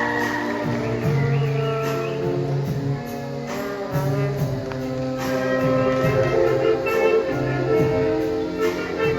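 Marching showband playing live: brass section with trumpets and trombones carrying the melody over drums, in a groovy disco-funk Manila Sound style.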